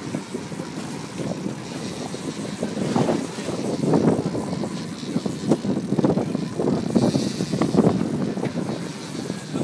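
Motorboat engine running under a steady, gusty rush of wind on the microphone.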